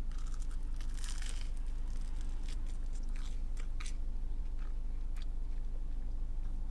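A person chewing a bite of grilled cheese on toasted sourdough, with faint crunches of the crust at scattered moments, over a steady low hum.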